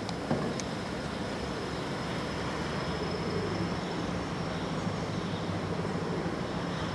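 Steady outdoor background noise: a low rumble like distant traffic, with a faint steady high whine, and one soft click about a third of a second in.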